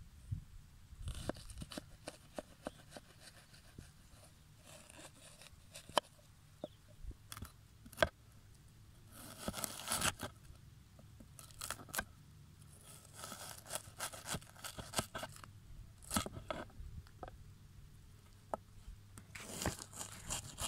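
Knife chopping a red onion on a wooden cutting board: crisp crunches as the blade goes through the layers, in irregular bursts, with sharp knocks of the blade on the board.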